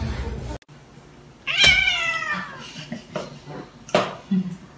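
Domestic cat meowing: one long meow that falls in pitch, about a second and a half long, followed by a short sharp click near the end.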